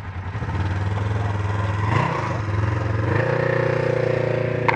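A motor engine running close by, a steady low hum whose pitch and level step up about half a second in and again a little past three seconds, with a short sharp knock about two seconds in.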